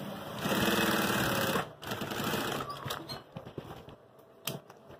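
Industrial lockstitch sewing machine running in short bursts of stitching through fabric during the first three seconds, then fabric handling with a few sharp clicks.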